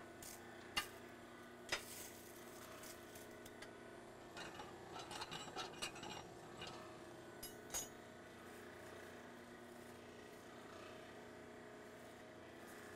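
Steel tongs clinking and scraping against the blade and the coal in a coal forge fire: two sharp clinks in the first two seconds, a busy run of small clinks and scrapes around the middle, and one more clink near eight seconds, over a steady hum.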